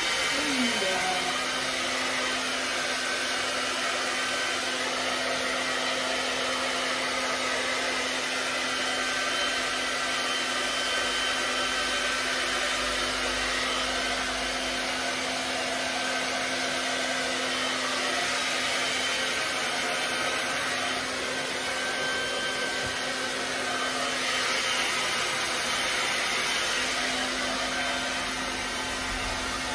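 Handheld hair dryer running steadily: a constant rush of blown air with a steady hum underneath.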